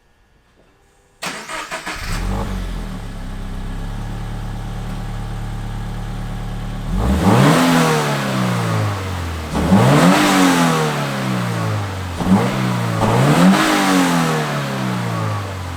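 A 2019 Subaru BRZ's flat-four engine starting about a second in, settling into a steady idle, then revved several times, each rev rising and falling back to idle.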